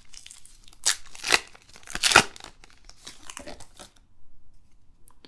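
A baseball card pack wrapper torn open by hand, with crinkling and a few loud rips about one and two seconds in, then softer rustling.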